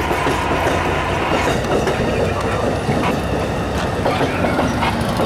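Double-deck Amtrak California passenger cars rolling past close by: a steady rumble of steel wheels on the rails, with a few irregular clacks.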